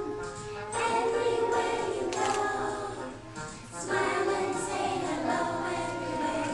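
A group of young children singing a song together, in sung phrases with a short break about three seconds in.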